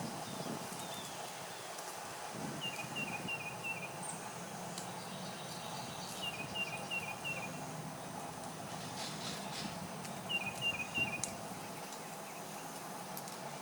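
Small bird chirping over a steady outdoor background: three short runs of four or five quick falling chirps, a few seconds apart.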